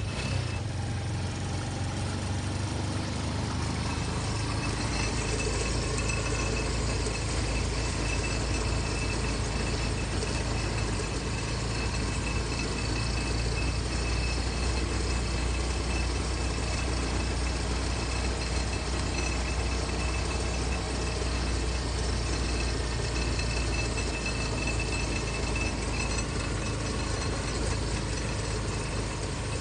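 Vehicle engine and tyre noise heard from inside the cab while driving steadily along a concrete road, a low continuous rumble with a thin steady high tone running through it.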